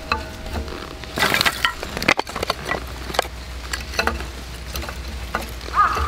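Dry split kindling sticks knocking and clicking against each other as they are laid in a crisscross stack, with a louder scrape of wood on wood a little over a second in.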